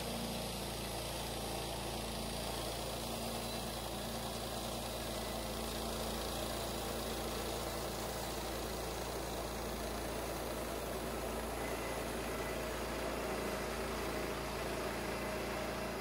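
Small gasoline engine of a Harbor Freight bandsaw sawmill running steadily at an even speed.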